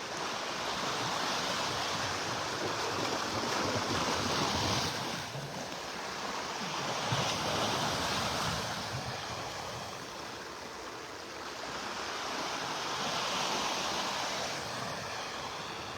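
Gulf of Mexico surf: small waves breaking and washing up the beach, swelling and easing in three slow surges.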